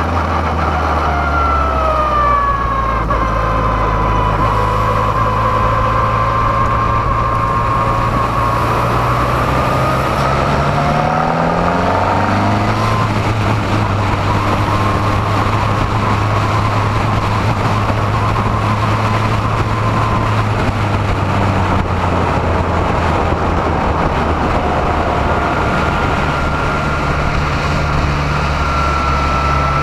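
Formula Renault 2.0 race car's four-cylinder engine running, heard onboard with wind noise; the revs fall in the first few seconds, climb and drop back about halfway through, then hold steady.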